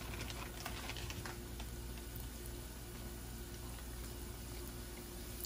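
Breaded whiting fillet frying in hot oil in a pan: a steady sizzle with crackles and pops, busiest in the first second or so and settling after that.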